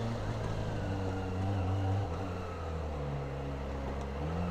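Kawasaki ZX-25R's inline-four engine running through its factory-stock exhaust while being ridden. The engine note drops about two seconds in, then holds steady at the lower pitch.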